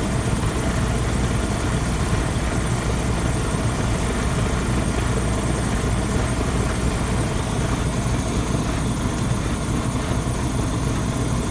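Waste oil furnace burner running steadily: a continuous even noise from the burner's blower and flame, with a low hum underneath.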